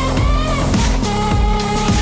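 Electronic background music with a steady heavy beat and sustained synth notes.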